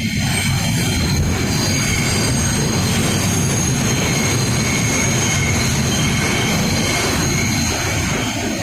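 R160B subway car running through the tunnel: a steady loud rumble of wheels on track, with thin high wheel squeal sounding on and off.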